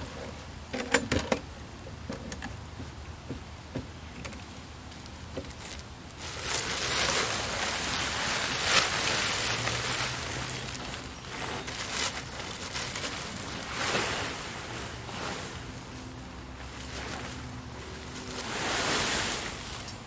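Blue plastic tarp rustling and crinkling as it is dragged and shaken off a wooden cart, loudest in a long stretch from about 6 to 13 seconds and again near the end, with a few knocks about a second in.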